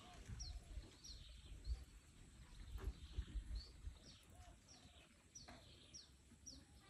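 Faint bird chirping: short, high, downward-slurred notes repeated about twice a second. Soft low thumps and rumble on the microphone come and go beneath it.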